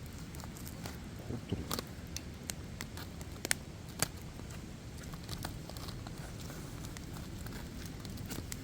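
Wood campfire crackling, with irregular sharp pops over a low steady rush of the burning fire.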